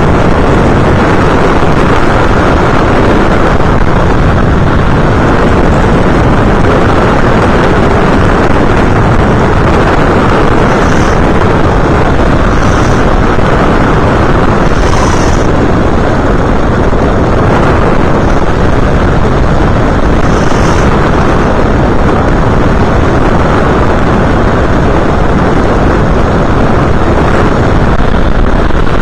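Steady, loud rush of wind and airflow on an FPV aircraft's onboard camera microphone in flight, mixed with the aircraft's motor and propeller noise, with a few brief high blips midway.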